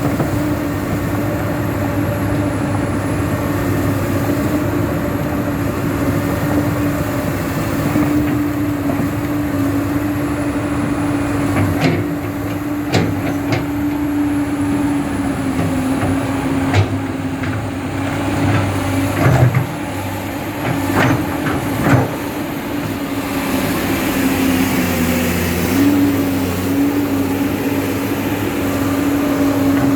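Komatsu PC200-8 hydraulic excavator's diesel engine running steadily, with a series of sharp knocks from the machine about halfway through. The engine note dips briefly and comes back up about three-quarters of the way through.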